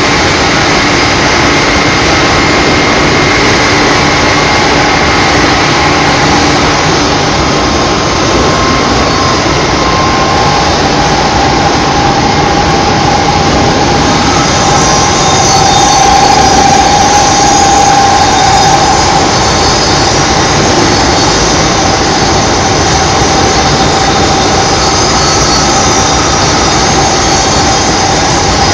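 Aluminium rod breakdown (wire-drawing) machine running: a loud, steady mechanical noise with several steady whining tones, one of which swells for a few seconds about halfway through.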